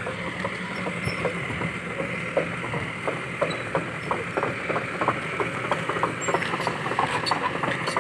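Kobelco SK200-8 crawler excavator travelling on its steel tracks over asphalt: a steady diesel engine note under a constant stream of irregular clanks and creaks from the track links.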